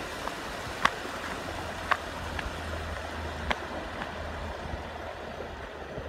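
Steady rush of water flowing over a rocky streambed, with a few sharp clicks or taps cutting through it.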